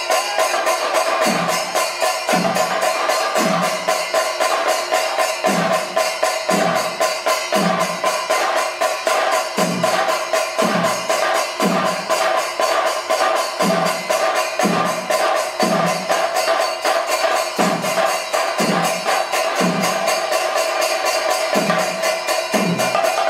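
Thayambaka on a large ensemble of chenda drums: rapid, dense stick strokes, with deep bass strokes landing about once a second and ilathalam cymbals keeping time.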